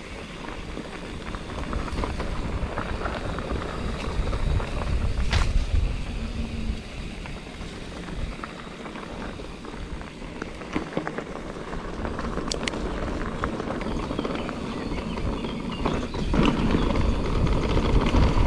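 Mountain bike riding down a dirt and rock trail: tyres rolling over the ground with a steady rumble, and the bike rattling with scattered sharp clicks and knocks. It gets louder about 4 seconds in and again near the end.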